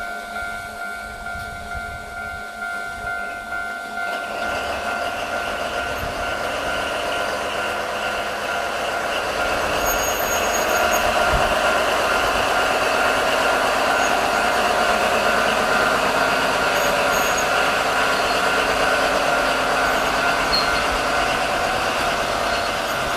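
Level-crossing warning bell ringing in a fast, even pulse. About four seconds in, the rumble and rolling wheel noise of a DD45 diesel locomotive hauling empty cement wagons rises and grows louder, with the bell still faint beneath it.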